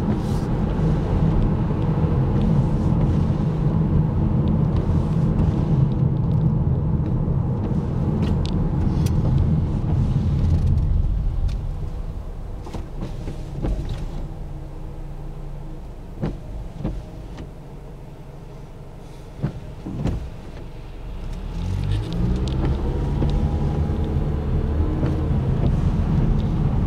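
Inside a moving car on a wet road: steady engine and tyre rumble that drops away as the car slows to a crawl partway through. A few short thumps sound while it is slow, then the engine pitch rises as it speeds up again.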